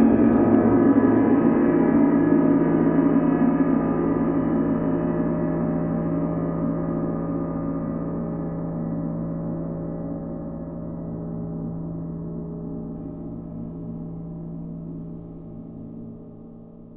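A long ringing tone of many steady pitches, struck just before and fading slowly throughout.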